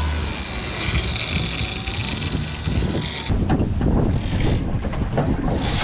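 Boat running at speed: the wash of its churning wake and a steady hiss. After a cut about three seconds in, wind buffets the microphone on the open deck, with two brief louder rushes of noise.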